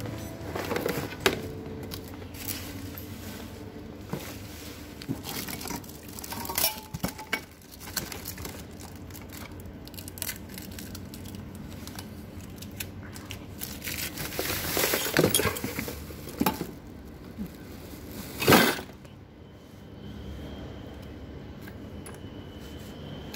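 Metal tricycle parts clinking and knocking against each other as they are handled in a cardboard box, with plastic wrap crinkling and cardboard rustling. One sharp, loud knock about three-quarters of the way through.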